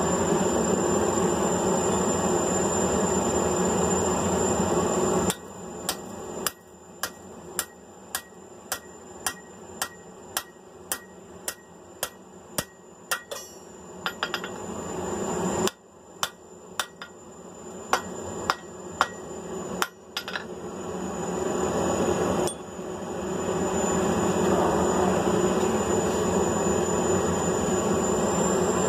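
Hand hammer striking a half-inch drift to open punched holes in a hot 1/4-inch mild steel flat bar: two runs of sharp, ringing blows at about two a second, with a short pause between them. A steady rushing noise fills the start and comes back near the end.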